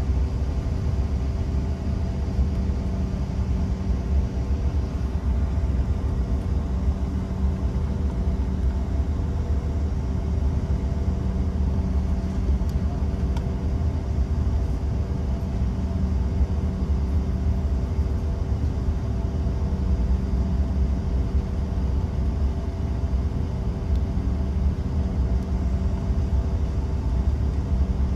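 Steady cabin noise of a Bombardier CRJ-700 taxiing: its rear-mounted GE CF34 turbofans running at idle, heard from inside the cabin as a low rumble with a steady hum of several tones and no change in pitch.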